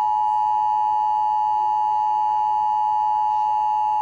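Emergency Alert System attention signal: the steady two-tone alarm, held without a break, that announces an emergency alert message.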